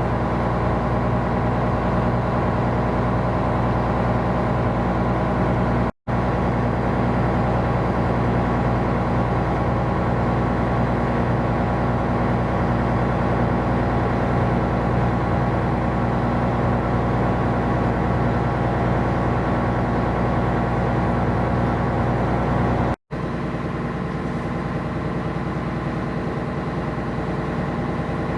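Steady low drone of a coastal tanker's diesel engine running at constant speed. It cuts out for an instant twice, and after the second break it continues slightly quieter with a changed tone.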